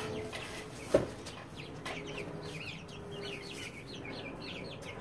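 Six-week-old chickens peeping, a quick run of short falling chirps that starts about a second and a half in and keeps going, with one sharp knock just before it.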